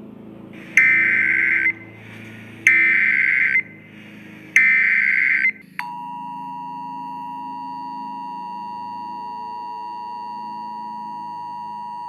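Emergency Alert System header: three short bursts of screechy data tones, each just under a second long, followed about six seconds in by the steady two-tone EAS attention signal, a harsh dissonant tone held unbroken.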